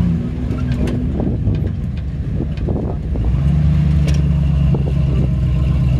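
Chevrolet K5 Blazer's engine running at low revs while the truck crawls over rocks. About three seconds in it pulls harder and the drone becomes louder and steadier, with a few light clicks.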